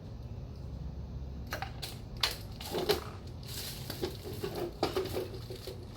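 Irregular clicks and scrapes of a screwdriver prying the oil filter out of its housing on a Kawasaki KX450F engine. Two sharper clicks come about two and three seconds in.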